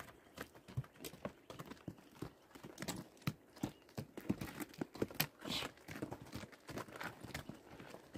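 An irregular clatter of sharp clicks and knocks, several a second, with some softer rustling between them.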